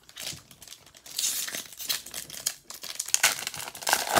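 Wrapper of a 2020 Bowman baseball card pack crinkling and tearing as it is ripped open by hand. The crackling starts about a second in and is loudest near the end.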